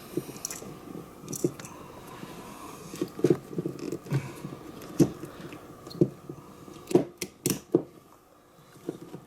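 Hand work connecting a power wire to a winch solenoid: irregular clicks, taps and small knocks of metal parts and tools being handled.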